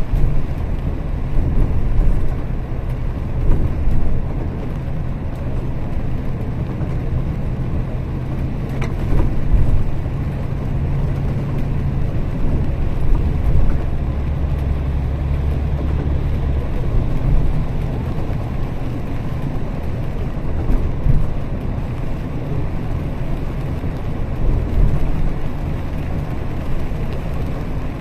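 Double-decker bus engine and tyres on a wet road, heard inside the bus as it cruises along the highway: a steady low drone. The engine hum shifts lower for a few seconds about halfway through.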